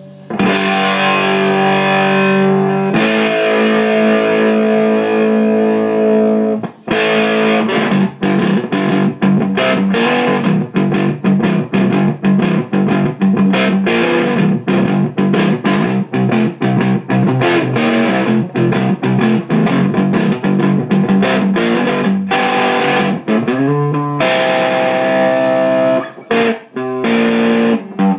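Gibson ES-335 electric guitar played through a Carlsbro TOP 100 amp head and Marshall 4x12 cabinet with an overdriven tone. It starts with held chords, then a long run of quick picked notes, a downward slide near the end, and held chords again.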